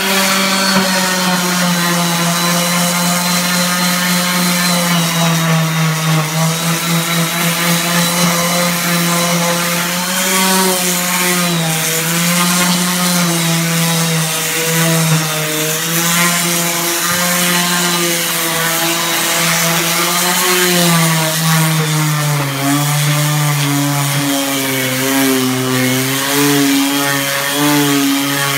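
DeWalt random orbital sander running continuously on a wooden stair tread with coarse 40-grit paper, sanding down the wear. The motor's pitch wavers and drops lower at times, most clearly in the second half.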